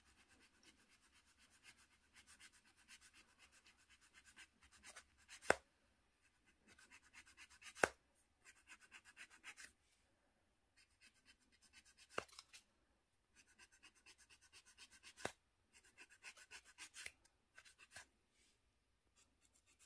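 Faint rasping of a wooden nail file's sandpaper face rubbed in quick short strokes against the dry, hardened skin of a fingernail's side wall, in several runs of a few seconds each. A few sharp ticks come in between.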